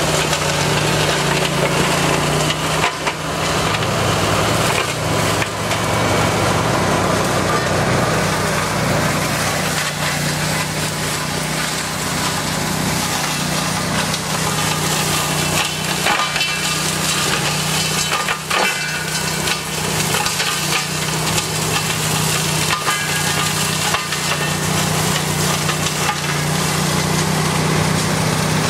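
Tow-behind ATV flail mower's engine running at a steady drone while its flails shred brambles and woodland undergrowth, with continual crackling and snapping of stems and twigs.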